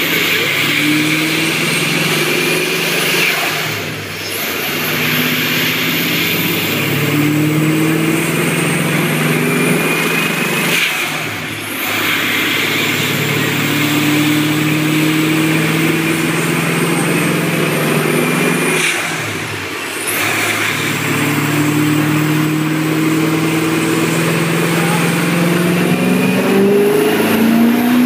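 Built BMW S62 V8 with a Vortech V7 centrifugal supercharger running in gear on a chassis dyno. It holds steady moderate revs, with the engine note dipping briefly three times, and the revs start to climb near the end as a pull begins, over the steady rush of the dyno's cooling fan.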